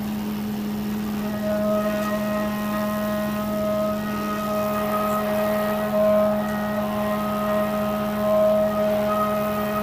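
Haas VF-4SS CNC vertical mill roughing aluminium with a carbide end mill: a steady spindle hum under a higher cutting whine that comes and goes as the cut changes, over a hiss of coolant spray.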